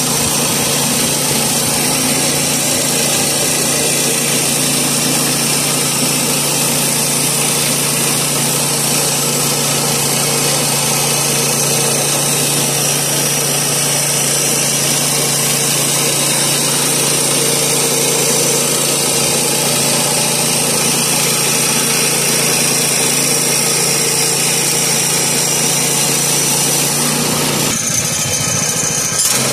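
Woodland Mills HM122 portable bandsaw mill with its 7 hp engine running steadily under load as the band blade cuts through a sycamore log. Near the end the steady engine tone breaks off briefly, then comes back a little higher.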